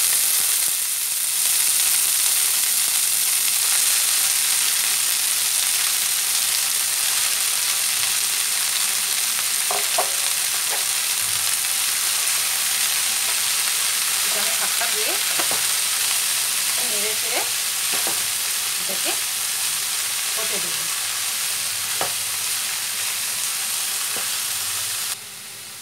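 Washed, chopped red spinach (lal shak) sizzling in hot mustard oil in a kadai, a steady loud frying hiss that starts the moment the wet leaves hit the oil. A spatula scrapes and taps against the pan now and then as the leaves are stirred, and the sizzle cuts off suddenly near the end.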